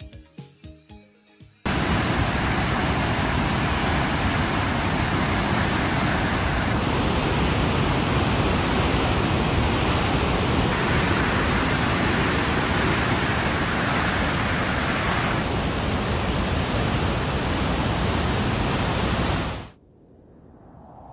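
Loud, steady rush of brown floodwater churning through a river barrage in high flood, cutting in abruptly about two seconds in after a moment of music, and dropping off suddenly near the end to a much quieter hiss.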